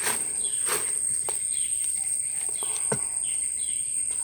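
Forest ambience: a steady high-pitched insect drone with short, falling bird chirps repeating every half second or so, and a few sharp clicks.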